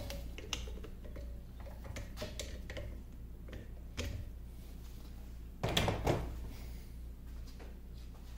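Compound rest of a 1950 LeBlond Regal lathe being handled and worked at its top while held in a bench vise: scattered light metal clicks and knocks, with a louder clatter about six seconds in.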